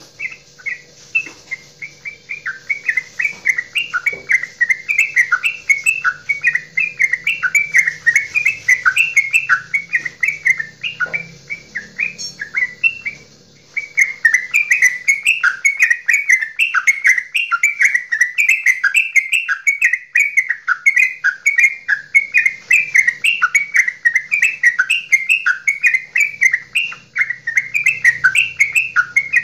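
Yellow-vented bulbul (trucukan) singing a long goklikan, a fast, unbroken string of short chattering notes. It breaks off for about a second near the middle, then carries on.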